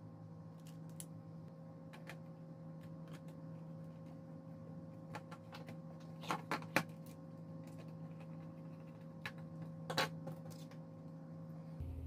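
Scattered light clicks and knocks of a plastic remote control being handled and set down on a wooden desk, the sharpest about six and a half seconds in and again near ten seconds, over a faint steady hum.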